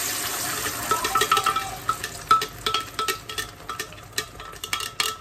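Blended chilli spice paste hitting hot oil in a wok and sizzling, loudest at first, while a slotted spatula scrapes and taps the paste out of a blender jug in repeated sharp clicks.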